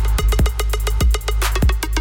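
Hip hop beat with no vocals: a deep, steady bass and kick-drum hits under fast, sharp hi-hat ticks.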